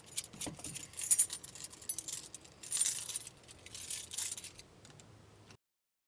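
A bunch of metal keys on a ring jangling and clinking in a hand at a door lock, in three bursts of clinks, cutting off abruptly near the end.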